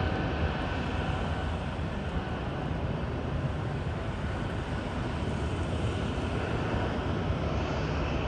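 Airbus A220-300's Pratt & Whitney PW1500G geared turbofan engines at takeoff power, a steady low rumble as the jet climbs away.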